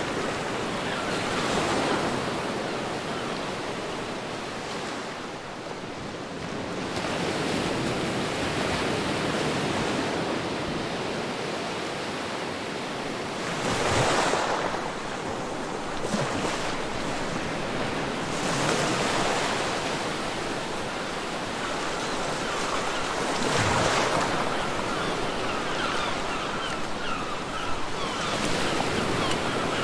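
Ocean waves breaking and washing on a beach, a steady rush of surf that swells louder every few seconds, with wind.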